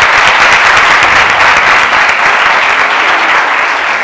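Audience applauding: steady, dense clapping that begins to ease near the end.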